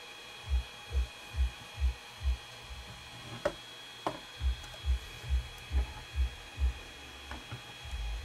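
Two light clicks of a graphics card knocking in its 3D-printed plastic holder as it is handled, over a series of soft low thumps about two a second and a faint steady high whine.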